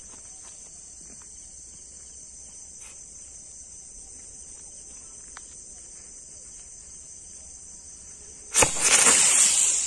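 Crickets chirring steadily in the dark. Near the end, a sudden loud hissing burst lasting just over a second as the lit firecracker goes off.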